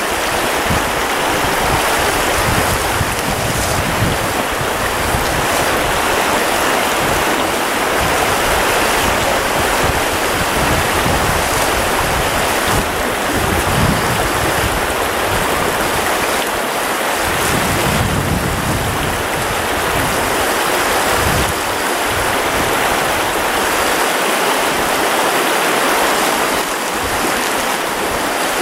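Shallow, fast creek running steadily over its riffles, a constant rushing. Low rumbles of wind on the microphone come and go several times.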